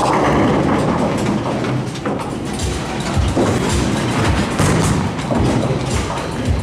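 Bowling alley din: a Brunswick pinsetter cycling and setting a fresh rack of pins. Then a bowling ball rolls down the lane with a low, uneven rumble.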